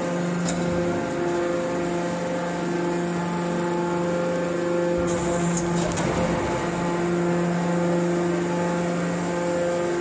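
Hydraulic scrap-tin baler running: the pump and motor give a steady, even hum, with a brief hiss about five seconds in.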